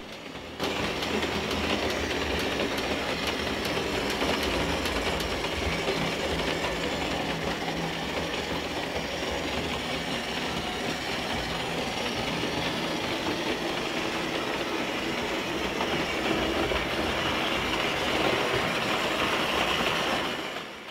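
Märklin 3629 BR 191 H0 model electric locomotive hauling a train of hopper wagons over Märklin M-track, giving a steady rolling clatter of metal wheels on the tinplate track with a hum underneath. It starts abruptly about half a second in and fades out at the end.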